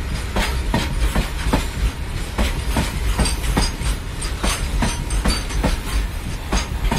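Wagons of a loaded coal freight train rolling past, their wheels clicking over the rail joints about twice a second over a steady low rumble.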